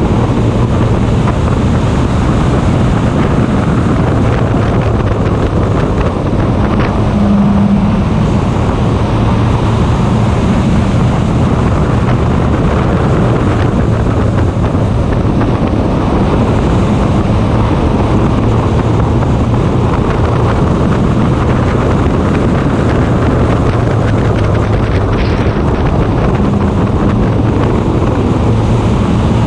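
Race car's engine running steadily under power, heard from an onboard camera, with wind buffeting the microphone. The engine note briefly rises about seven seconds in and again near the end.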